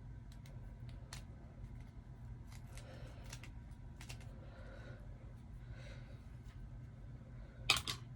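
Scissors snipping now and then as the lace of a synthetic braided wig is trimmed, with light handling rustles between cuts and one louder, brief rustle near the end. A steady low hum runs underneath.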